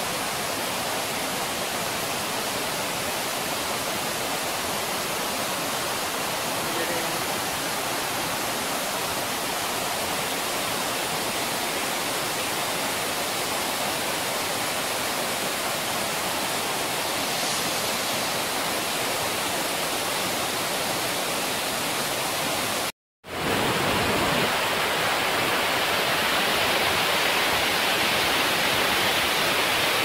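Steady, even rush of a waterfall about 25 metres high pouring into its pool. About 23 seconds in it cuts out for a moment, then returns louder and brighter.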